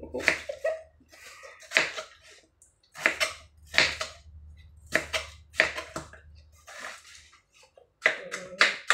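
Kitchen knife cutting through watermelon and hitting the cutting board: about ten crisp chops at an uneven pace.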